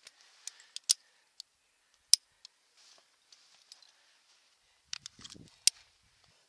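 Sharp clicks and knocks of climbing gear and hands against the rock as a climber moves up the route, loudest about two seconds in, with a quick run of clicks and a short scuffing rustle about five seconds in as a quickdraw is reached.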